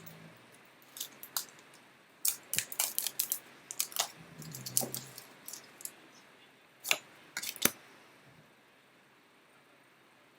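Foil wrapper of a Pokémon trading card booster pack being handled and torn open: a run of short crackles and clicks, then two sharper clicks about seven seconds in.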